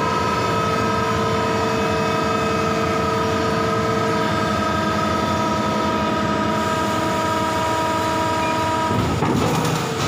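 A 100-ton Electronica Ventura injection moulding machine running during its moulding cycle: a loud, steady machine whine made of several tones. About nine seconds in the tones stop and a short, louder rush of noise follows.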